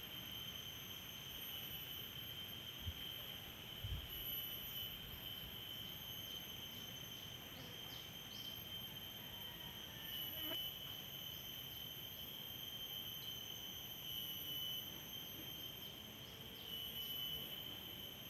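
Steady high-pitched insect chorus, with a higher trill that comes and goes every few seconds. Two brief soft low thumps about three and four seconds in.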